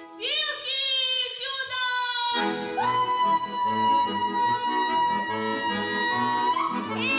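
A girls' folk ensemble singing a Russian folk song. It opens with sliding vocal calls, then about two seconds in an accompaniment with a steady beat comes in under a long held high note.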